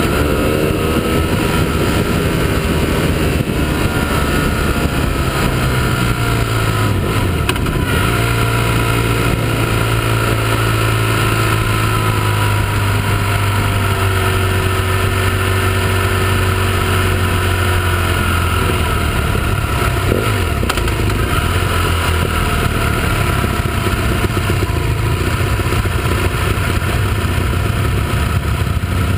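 Motorcycle engine heard from an onboard camera, rising and falling in pitch as it accelerates and eases off through bends, holding a steady pitch for about ten seconds in the middle. Wind noise rushes over the microphone throughout.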